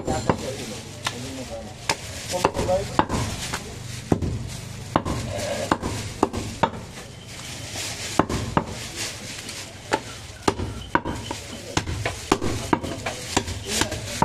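Butcher's heavy cleaver chopping goat meat on a wooden chopping block: sharp, irregular knocks, about one or two a second.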